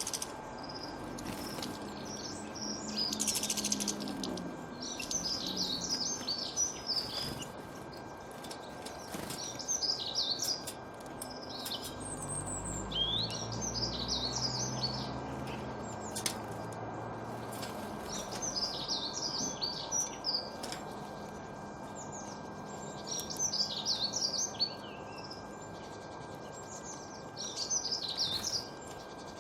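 Wild birds singing outdoors: short, twittering high-pitched phrases come every few seconds over a steady background hiss. A faint steady high tone runs underneath, and a low rumble rises and fades in the middle.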